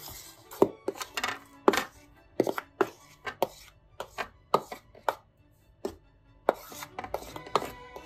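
A metal whisk and spoon clinking and tapping against porcelain bowls while flour is mixed and scooped: a long irregular run of sharp clinks, about two to three a second, each with a brief ring.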